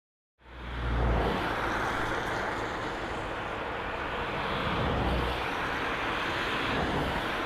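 Embraer Legacy 450 business jet's twin Honeywell HTF7500E turbofans on landing: a steady rush of jet noise that fades in about half a second in, with low rumbles around one second and again around five seconds in.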